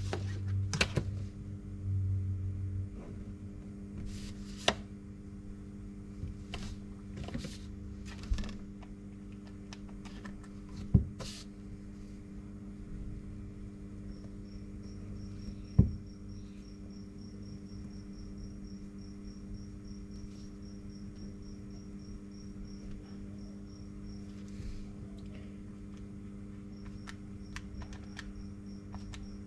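Steady electrical hum, with scattered sharp clicks and taps of a pen and a plastic ruler on paper sheets on a desk. A faint, high, evenly pulsing chirp comes in about halfway through.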